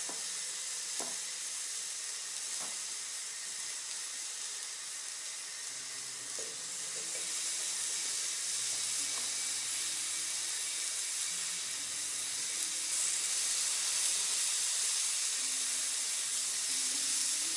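Cubes of pork neck sizzling as they are searched into a hot kazan, a few at a time. The frying hiss is steady and grows louder from about halfway through as more meat goes in.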